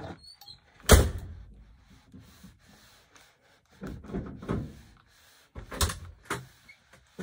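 A clothes iron handled on a padded pressing mat: a hard thunk about a second in as it is set down, then softer knocks, clicks and scrapes as it is moved over the fabric.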